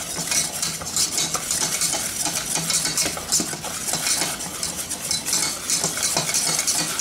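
A metal wire whisk beating a butter-and-flour roux in a stainless steel saucepan: rapid, steady scraping and clicking of the wires against the pan, with the roux sizzling as it cooks.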